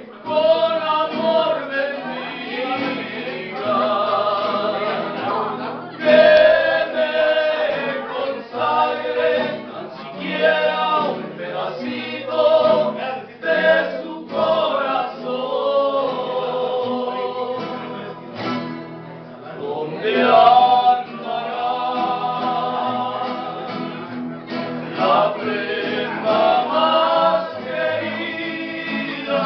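A group of men singing a serenade together, accompanied by several strummed acoustic guitars.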